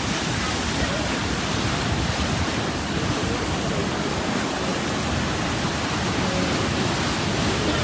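Sea surf washing on a beach: a steady, even rush of waves.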